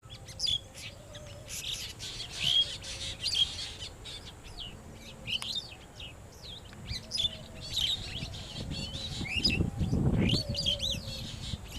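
Songbirds chirping in a quick run of short, varied notes and trills. A low rumble swells briefly about ten seconds in.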